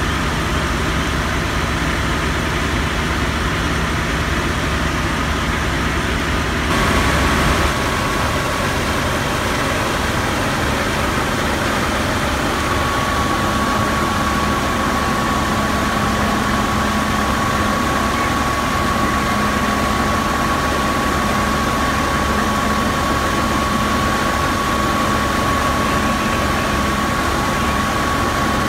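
Vehicle engine running steadily. A steady high whine joins it about twelve seconds in, and the sound swells briefly about seven seconds in.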